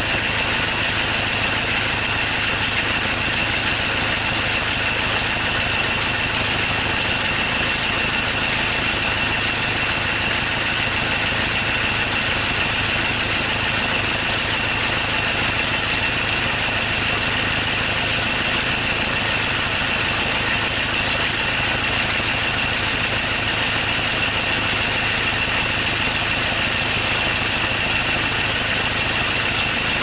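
2013 Ford Ranger diesel engine idling, really loud and steady with a high-pitched whine over it; the engine is misfiring, which the mechanic traces to cylinders one and two.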